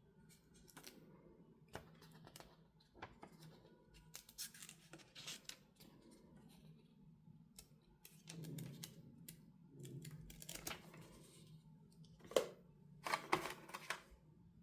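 Hands handling earbud packaging: scattered light clicks, scrapes and brief rustles, with a sharper click and a short cluster of clicks near the end.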